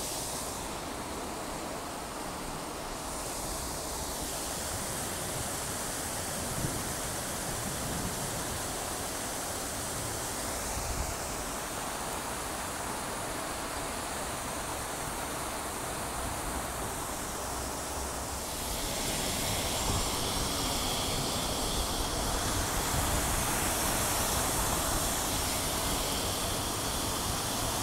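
Lincoln Center's Revson Fountain: many water jets splashing steadily into the basin, a dense rushing hiss that grows a little louder about two-thirds of the way in.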